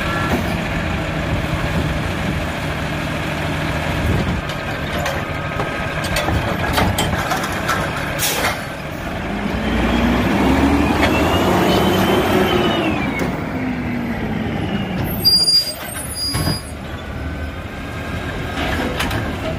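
Peterbilt 320 garbage truck with a Wayne Curbtender side-loader body running while its lifting arm works. The engine revs up and back down over a few seconds as the hydraulics cycle. About fifteen seconds in, a short, sharp hiss of the air brakes releasing, and the truck moves off.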